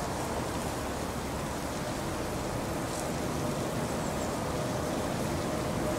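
Bombardier Traxx electric locomotive hauling a train of tank wagons approaching at low speed: a steady rumbling noise that grows slowly louder as it nears.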